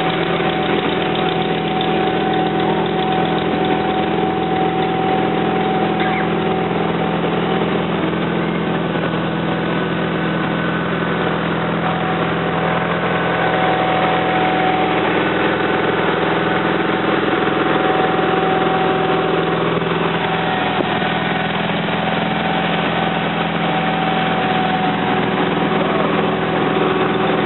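An engine running steadily at one unchanging speed, with a thin steady whine riding over its hum.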